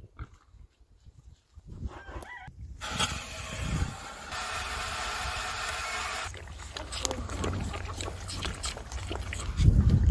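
Water rushing from a livestock float valve into a plastic half-barrel waterer fed by a garden hose. It starts suddenly about three seconds in as a steady rush, then drops away after about three seconds to quieter clicks and handling noises.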